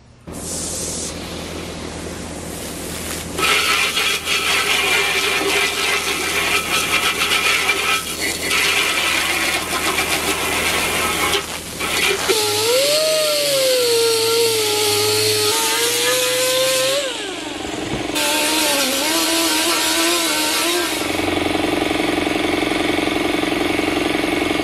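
Pressure washer running, its jet spraying onto the steel fireplace base to rinse off the rust remover. About halfway through, a motor tone wavers up and down for a few seconds, and near the end it settles into a steady hum.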